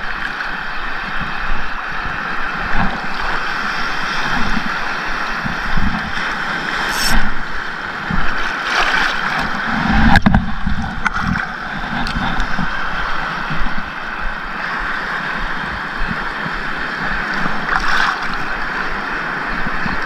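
Choppy seawater sloshing and splashing around a wading angler, with irregular low thumps of water buffeting the body-mounted camera. A bigger surge of water comes over the camera about ten seconds in.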